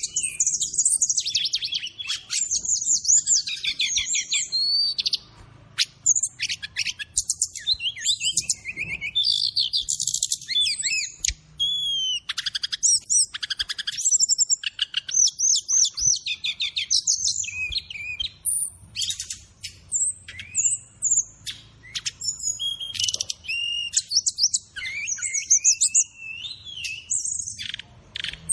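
Brown-chested jungle flycatcher (sikatan rimba dada coklat) singing a long, rapid, varied warbling song in phrases broken by short pauses.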